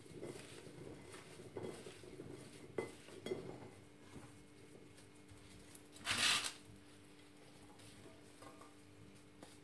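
Faint clinks and rustles of diced raw potato pieces being tossed on a ceramic plate and tipped into a stainless steel pot, with one louder half-second rustling noise about six seconds in. A faint steady hum lies underneath.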